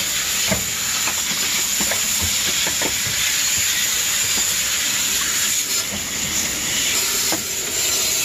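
Steady hiss of a water jet from a brass hose nozzle spraying and splattering across a freezer's evaporator coil fins, washing off built-up ice.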